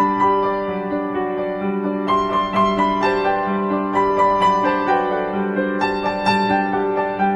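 Background piano music: sustained chords with a melody picked out above them.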